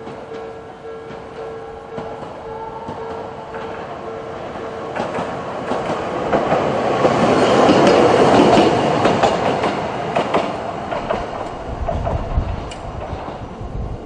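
Level-crossing alarm sounding its Odakyu-type electronic tone in even repeats for the first few seconds, then a Toei Arakawa Line tram passing over the crossing: wheel and rail noise swells to its loudest about eight seconds in, with sharp clacks from the wheels over the rail joints, then eases off.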